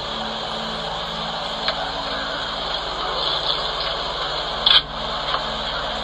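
A steady engine-like hum, as of a vehicle idling, with an even low throb and hiss. There is a click a couple of seconds in, and a louder, sharp click about three-quarters of the way through.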